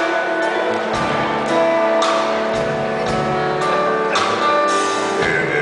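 Live band music: an archtop electric guitar plays over keyboard, with a slow, steady beat.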